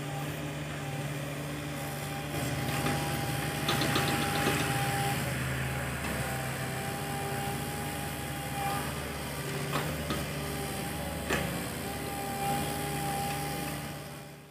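Hitachi mini excavator's diesel engine running steadily under a high, steady whine. A quick rattle of clanks comes about four seconds in and a few sharp knocks later on, and the sound fades out at the very end.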